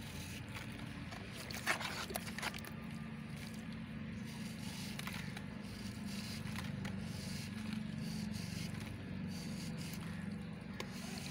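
A small knife scraping and shaving a dry block of white cement, the powder and crumbs falling into a tub of water. There are a few sharp scraping strokes about two seconds in, then softer, scattered scraping. A steady low hum runs underneath.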